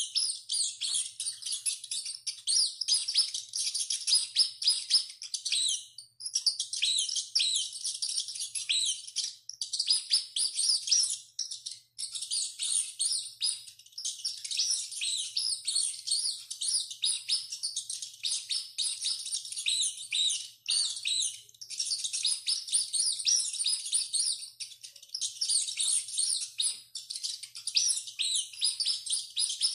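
Rats squeaking: a dense, continuous chorus of short, high-pitched squeaks and chirps, broken by a few brief gaps.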